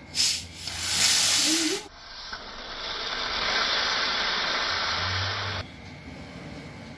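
Carbonated soda water hissing as the cap of its plastic bottle is twisted loose. There is a sudden loud burst of escaping gas just after the start that lasts about two seconds. A second long hiss of gas and spray then swells and cuts off suddenly about a second before the end.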